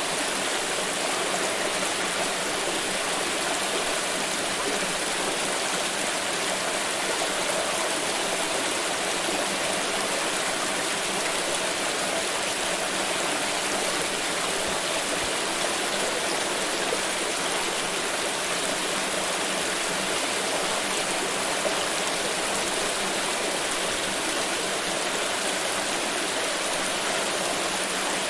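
Water pouring in a steady, continuous rush with no breaks or changes.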